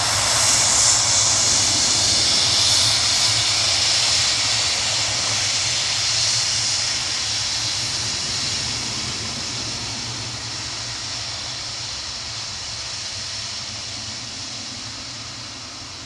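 Thomas Cook Boeing 757-200's twin jet engines at takeoff power during its departure, a steady rushing noise with a strong high hiss, loud at first and fading steadily as the aircraft moves away.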